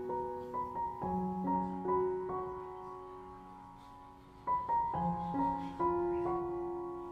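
Background music: a slow piano melody, single notes and chords that ring out and die away, fading for a moment past the middle before new notes come in.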